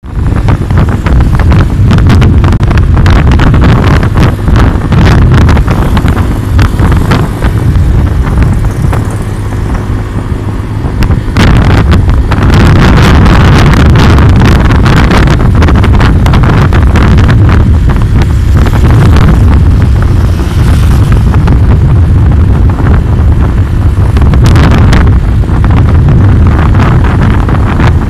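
Wind buffeting the phone's microphone on a moving motorcycle, a loud steady low rumble crackling with gusts, over the noise of the motorcycle and road traffic.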